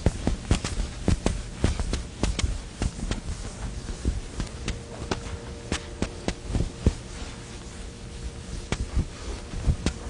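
Irregular sharp taps and clicks, several a second, over a faint steady hum.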